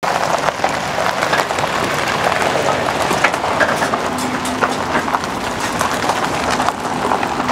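Ram dually pickup towing a loaded flatbed trailer past on a gravel drive: tyres crunching the gravel, with many small clicks and rattles from the rig and a faint steady hum in the second half.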